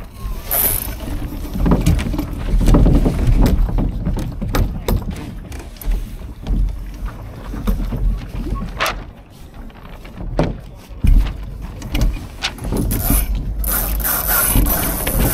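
Laser dinghy on the water: a steady rush of wind and water with scattered knocks and clicks from the boat, and a brighter hiss near the end.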